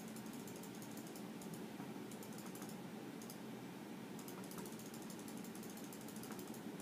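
A hamster gnawing and chewing its food: a fast run of tiny crunching clicks, with a short pause a little past the middle.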